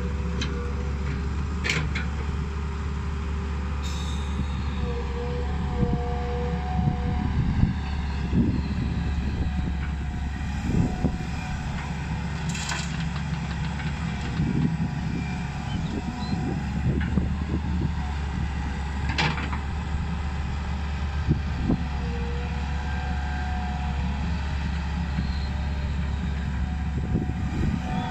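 Hitachi EX120 hydraulic excavator's diesel engine running steadily under load as it digs and loads soil into a dump truck, with scattered knocks and clunks from the bucket working.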